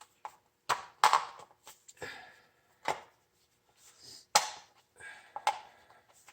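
Table-fan parts, plastic housing and metal frame pieces, knocking and clattering as they are handled and taken apart: a handful of separate sharp knocks at irregular intervals.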